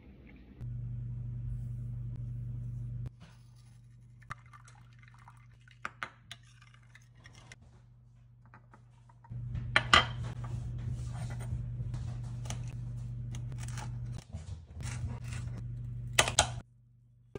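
Glass dishes and cutlery clinking and knocking on a stone countertop, with the sharpest knocks about ten and sixteen seconds in, over a steady low hum that cuts in and out abruptly.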